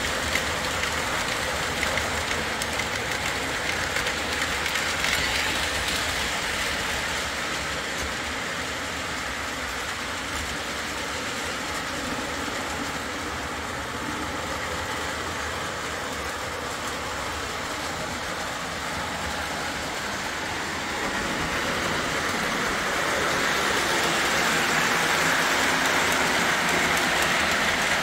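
Lionel O-27 Alco diesel model locomotives running on three-rail toy track: a steady motor and wheel running noise that grows louder about two-thirds of the way in.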